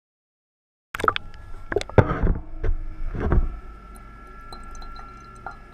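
Silence for about a second, then a run of sharp knocks and clatters for a couple of seconds, settling into a faint steady hum with a thin steady tone and a few light ticks.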